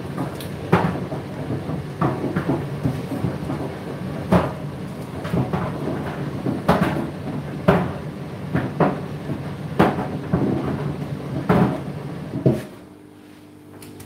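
A washing machine and a condenser tumble dryer running side by side: a steady motor hum with irregular thuds of laundry tumbling in a drum, about once a second. Near the end the thudding and most of the noise stop abruptly, leaving a quieter hum.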